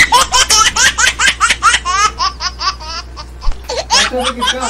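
Men laughing hard in rapid, high-pitched bursts. The laughter eases off about two seconds in and breaks out again near the end.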